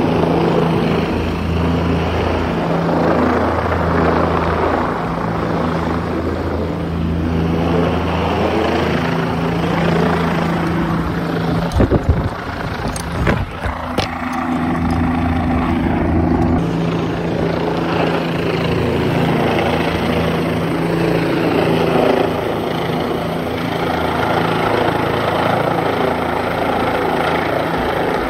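Helicopter hovering overhead, its rotor and engine running with a steady beat. A few sharp knocks come about halfway through.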